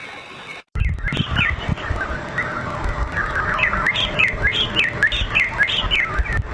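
Many small birds chirping together, a dense run of short, quick chirps several to the second, starting abruptly about a second in after a brief dropout, over a low rumbling noise.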